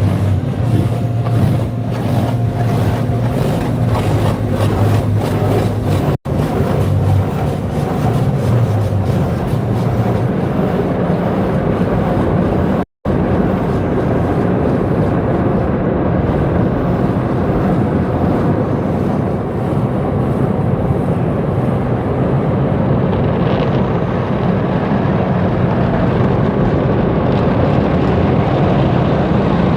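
Car wash machinery sound effects: a steady mechanical rushing noise, with a low motor hum through roughly the first third. The sound cuts out briefly twice.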